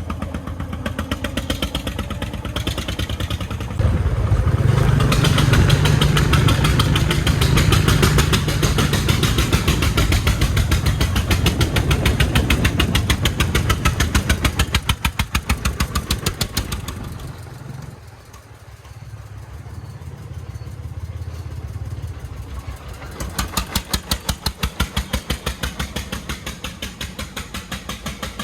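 Công nông homemade farm truck's single-cylinder diesel engine chugging with a rapid, even beat. It gets louder about four seconds in and stays loud, falls away around eighteen seconds, then picks up again.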